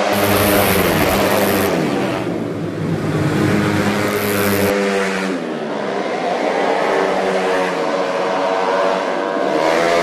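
Several racing 115cc automatic scooters running at high revs, their engine notes overlapping. The pitch slides down and back up as bikes pass by and others follow.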